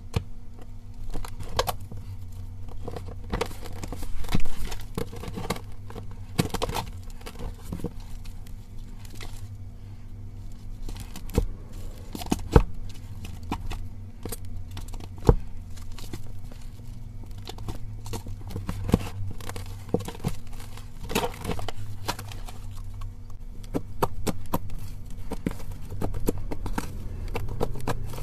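Hands playing with slime: squeezing and poking it, with irregular sticky clicks and pops, a few sharper ones standing out, over a steady low hum.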